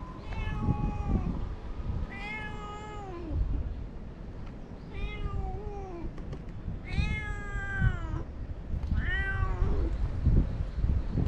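Stray cat meowing five times, about every two seconds, each a drawn-out call that drops in pitch at the end, over a low rumbling background noise.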